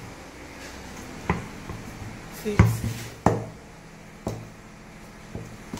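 A mixing bowl and wooden spatula being handled: four sharp knocks about a second apart, the second the loudest.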